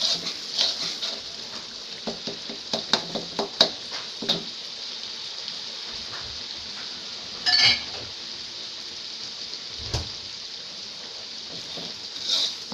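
Chili sauce sizzling steadily in a black wok, with a metal spatula scraping and clinking against the pan as it is stirred for the first few seconds. A short louder scrape comes a little past halfway and a low knock a couple of seconds later, and the clinking resumes at the very end.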